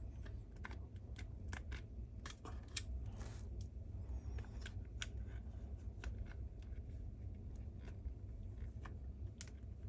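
Small scattered clicks and ticks of a screwdriver working screws out of the plastic cover of a cordless vacuum's roller head, with the plastic parts being handled and one short scrape about three seconds in, over a steady low hum.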